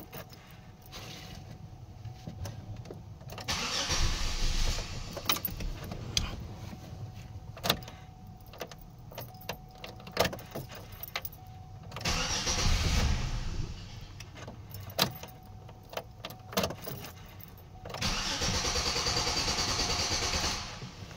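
2001 Chevrolet Impala's 3.4 V6 being cranked three times, each attempt lasting about two seconds, without catching: a crank-no-start. Sharp clicks are heard between the attempts.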